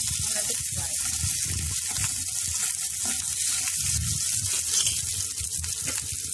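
Tempering of mustard seeds, dals, peanuts, cashews, chilies and curry leaves sizzling and crackling in hot oil in a non-stick kadai, stirred with a spatula after turmeric powder has gone in.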